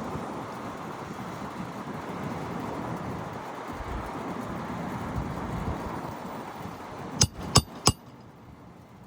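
Steady outdoor noise of wind and passing traffic, then three sharp metallic clinks about seven seconds in, quick in succession, from work on the asphalt roof shingles.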